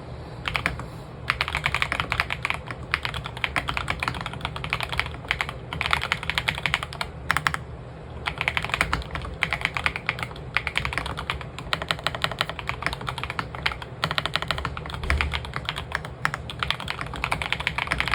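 AS87 keyboard being typed on: fast runs of key clicks broken by brief pauses.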